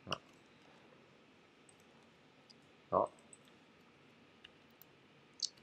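Sparse, faint clicks of a computer keyboard and mouse, with one short, louder voice sound about three seconds in.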